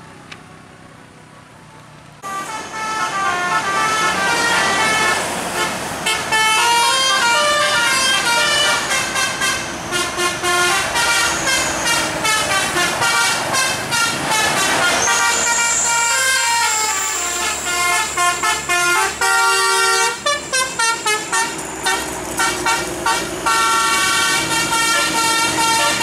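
Tour bus's telolet horn, a multi-note musical air horn, playing rapid melodies of short stepped notes. It starts suddenly about two seconds in over faint road noise and keeps going, breaking into quick choppy toots later on.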